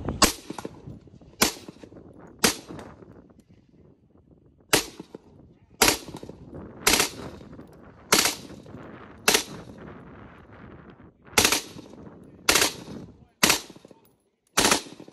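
FN FS2000 bullpup rifle fired as single shots, about a dozen, mostly a second or so apart with two short pauses. Each shot is a sharp crack followed by a short echo.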